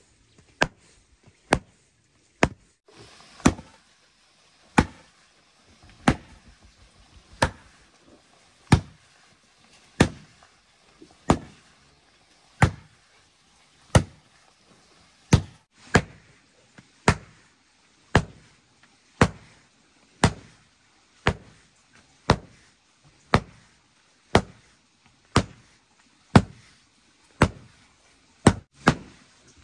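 A heavy wooden hand rammer pounding a dirt floor, tamping the loose soil down hard. It lands in sharp, steady thuds about once a second.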